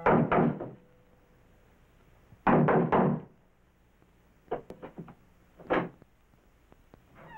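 Knuckles knocking on a wooden door: a short burst of knocks, then a louder burst about two and a half seconds later. After that come several lighter clicks, then one more click, as the doorknob is tried and the latch opens.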